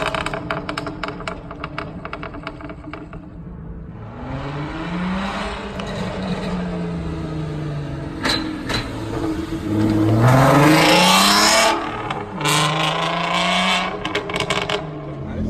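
Turbocharged VW Golf R32 Mk4's 3.2-litre VR6 engine held at steady revs with rapid crackling for the first few seconds, then revved up and down several times. Two sharp cracks come a little past halfway, and the loudest rev comes about two thirds of the way in.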